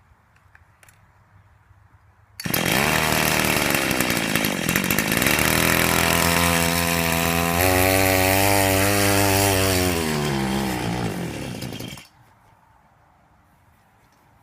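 A chainsaw's two-stroke engine driving a homemade minibike catches suddenly about two seconds in and runs at high revs for about ten seconds, its pitch dipping, climbing and falling, before it winds down and dies. The owner blames the bike's failure to move on the saw's burnt-up centrifugal clutch, which is slipping and smoking.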